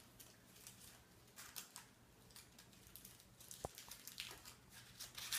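Faint crinkling and small sharp ticks of candy wrappers being handled and unwrapped, scattered irregularly, over a low steady room hum.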